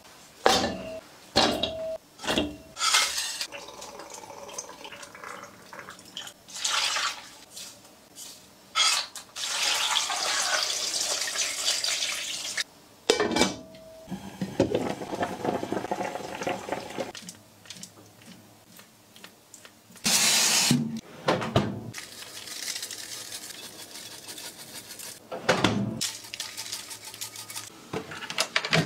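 A run of kitchen cooking sounds: pork trotters going into a pot of water, clinks and knocks of the pot, lid and utensils, and several stretches of running or pouring liquid lasting a few seconds each.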